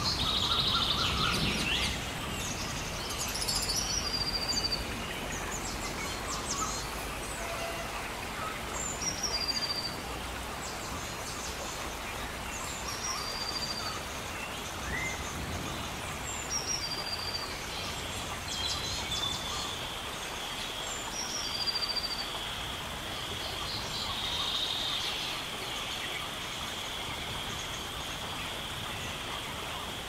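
Forest ambience at night: a short high call, a falling note and then a few quick chirps, repeats about every four seconds over a steady hiss. About halfway through, a steady high-pitched drone comes in and holds.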